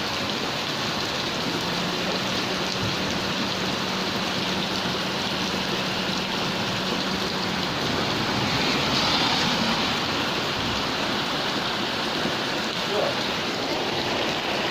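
Heavy rain falling on a Perodua Alza car, a steady dense hiss that swells briefly about nine seconds in. A faint low hum runs under it through the first half.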